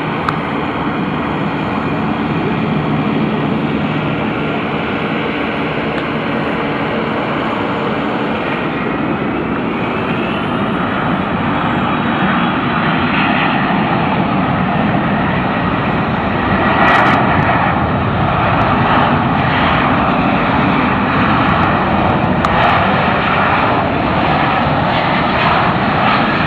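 Jet noise from a Boeing C-17 Globemaster III's four turbofan engines as it comes in to land: a steady loud rush with high whines that glide in pitch about ten seconds in, growing a little louder past the middle.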